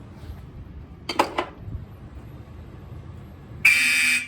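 A short clatter of sharp clicks about a second in, then fire alarm horns start sounding near the end with a loud, high-pitched blast.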